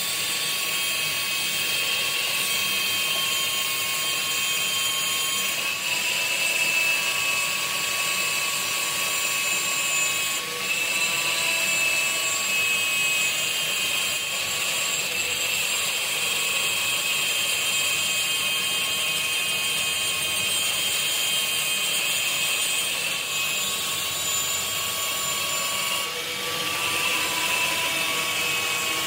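Angle grinder with an abrasive disc grinding a steel pinion shaft as it spins in a lathe: a steady high whine over the hiss of grinding, with the lathe running underneath. The pitch dips briefly about ten seconds in and again a few seconds before the end.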